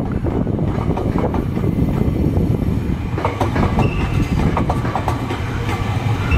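Nankai 8000/1000 series electric train running past, wheels clattering rhythmically over rail joints and pointwork.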